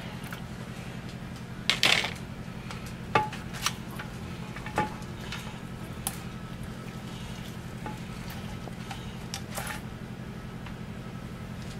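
Scattered light clicks and taps as a silicone mold is flexed and handled on a metal baking sheet to pop out set gelatin pieces, over a steady low hum.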